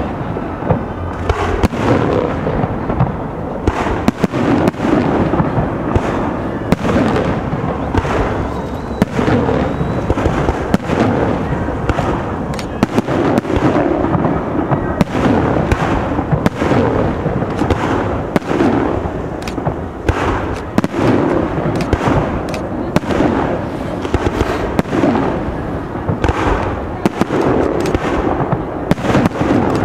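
Fireworks display: aerial shells bursting one after another, a dense, irregular run of sharp bangs over a continuous rumble.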